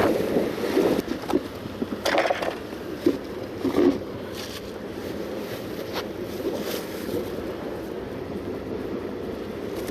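Wind buffeting the microphone over the wash of the sea against rocks, with a few short knocks and rustles of handling in the first four seconds.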